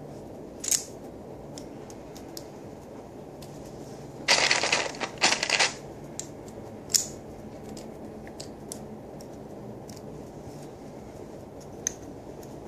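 Plastic Lego bricks being handled and fitted together: a few sharp clicks, with a louder rattling scrape in two parts about four to six seconds in.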